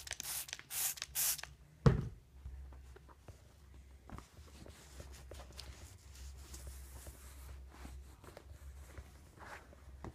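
Close handling noise from a phone held against a leather saddle: three short hisses in the first second and a half, a thump about two seconds in, then faint rubbing over a low rumble.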